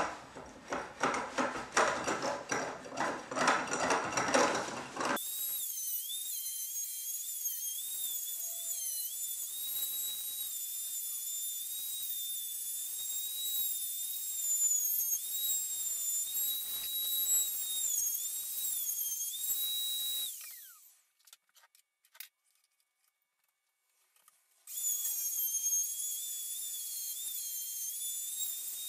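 A hand plane shaving walnut in quick repeated strokes, then, about five seconds in, a plunge router with a large 1-inch straight bit starting up and cutting the walnut seat, its high whine wavering in pitch as it takes the cut. It stops about twenty seconds in and, after a few seconds of near silence with a single click, runs again near the end.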